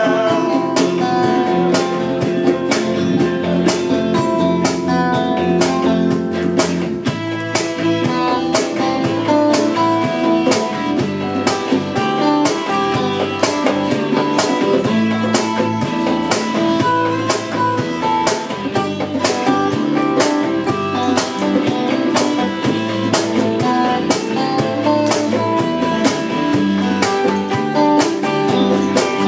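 Live band playing a song: electric guitars and bass guitar over a steady beat.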